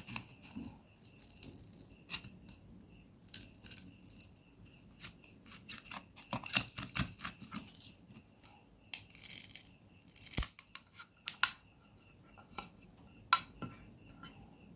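Small tools clicking and scraping on the plastic parts of a Samsung Galaxy A03s phone, in short irregular strokes, with a longer scrape about nine seconds in and a sharp click just after it.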